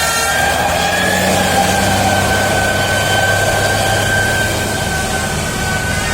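Large bus engine running with a steady low hum, a single high-pitched tone held steadily over it.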